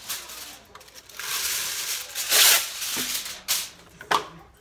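Aluminium foil being pulled from its box, torn off and crinkled as it is pressed down over a foil pan, in several short rustling bursts.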